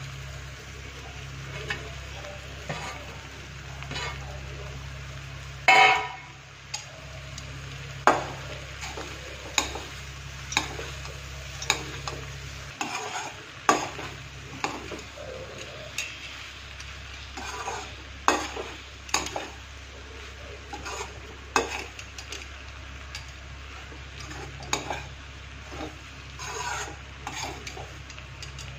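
Perforated metal spatula stirring and turning puffed rice with fried potatoes and cauliflower in a metal kadhai: irregular sharp clicks and scrapes of the spatula against the pan, over light sizzling and a steady low hum.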